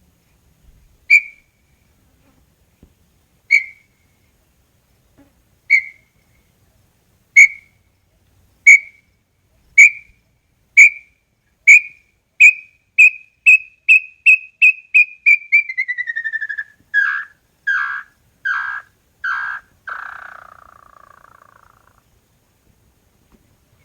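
Small-billed tinamou (inhambu-chororó) singing its full song: single clear whistled notes, widely spaced at first, come faster and faster into a rapid run, slide down in pitch, and end in four longer, coarser lower notes and a fading final note.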